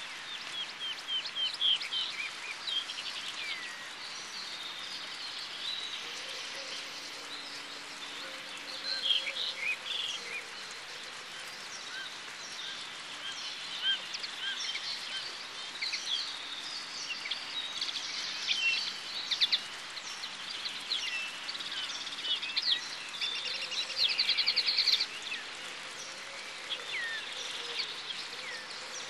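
Wild birds singing, with short chirps and rapid trills from several birds overlapping, and a buzzing trill near the end.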